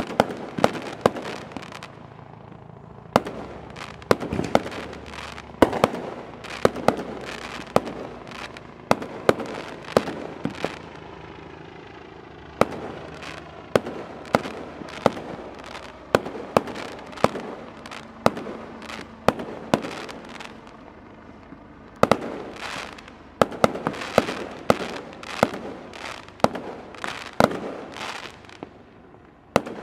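Aerial fireworks bursting overhead: sharp bangs in quick, irregular succession, broken by a few brief lulls.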